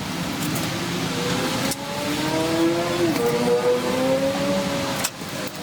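An electric power tool or machine motor running in the workshop. Its pitch wavers up and down, as under changing load, with two brief breaks, about 1.7 seconds in and about 5 seconds in.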